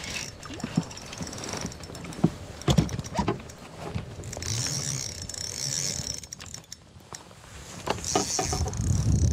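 Spinning reel being cranked to retrieve line, its gears whirring, with scattered clicks and knocks from handling the rod and reel. Wind rumbles on the microphone near the end.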